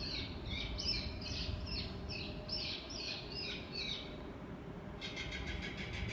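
Hungry great horned owl fledglings begging with high, rapidly repeated screeching calls, about two or three a second, which stop a little after four seconds in. About five seconds in, a steady pitched hum comes in.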